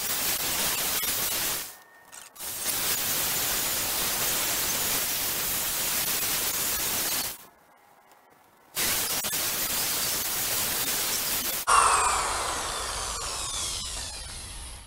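A DeWalt drill spinning a polishing pad against a plastic headlight lens while buffing it with polishing compound: a steady hiss that stops briefly about two seconds in and again for a second and a half in the middle. Near the end it turns sharper, then falls in pitch and fades as the drill winds down.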